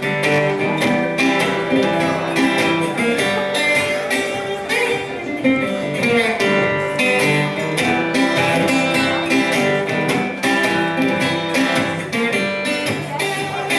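Acoustic guitar playing a blues song's instrumental introduction, strummed with a quick, steady rhythm.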